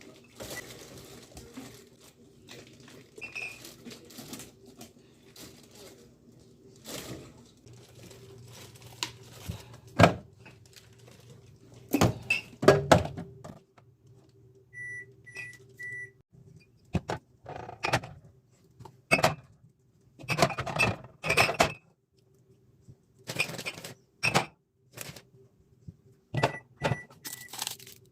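Plastic containers, jars and food packaging being handled and set down while a refrigerator is organized: irregular knocks, clicks and rustles over a steady low hum. Short electronic beeps come in a quick run of three, twice, about halfway and near the end.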